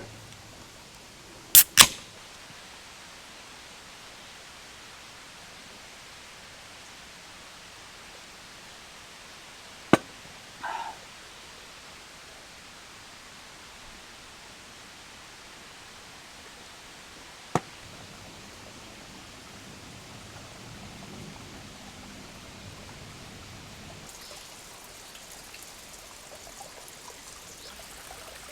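A steady hiss of outdoor ambience, broken by a few sharp knocks: two close together near the start, one about ten seconds in followed by a brief squeak, and one more around seventeen seconds.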